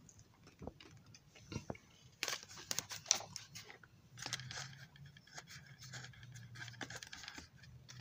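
Light handling noise: scattered clicks, scrapes and rustling of a plastic O gauge passenger car body being moved and handled, busiest from about two seconds in, with a faint low hum underneath in the second half.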